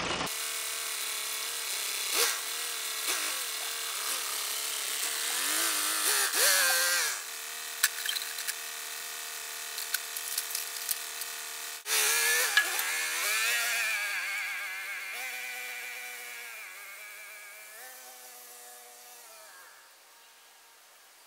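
Loader tractor's engine running, its pitch rising and falling as it revs, with a few sharp clanks around the middle; the sound then fades steadily as the tractor moves away.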